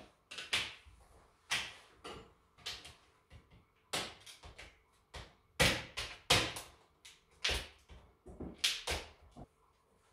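Large kitchen knife chopping dark chocolate on a cutting board: a run of sharp, irregular knocks, roughly two a second, as the blade strikes the board.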